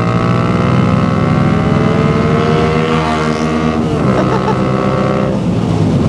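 Yamaha FZ-07's parallel-twin engine accelerating hard in third gear after a downshift from sixth, its pitch climbing steadily for nearly four seconds. It drops at about four seconds as the rider shifts up, pulls again, and eases off near the end.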